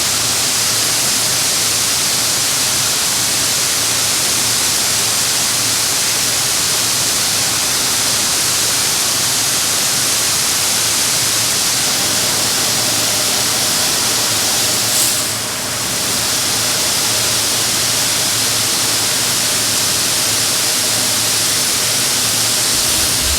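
Loud, steady rushing noise with a faint low hum underneath, dipping briefly about fifteen seconds in.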